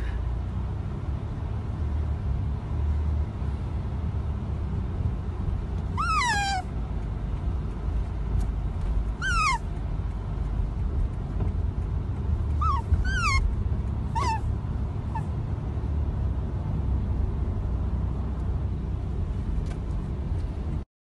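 Pet otter giving short, high, squeaky chirps that fall steeply in pitch, about five spread a few seconds apart, two of them close together. Under them runs a steady low rumble from inside a car.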